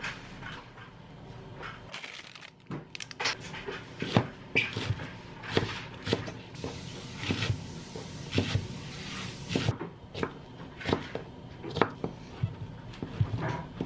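Kitchen knife chopping green onions and then slicing bacon on a wooden cutting board: uneven knocks of the blade on the board, about one or two a second.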